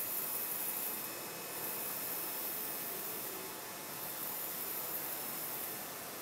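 Steady hissing room noise, strongest in the high treble, with a couple of faint high steady tones and no distinct events.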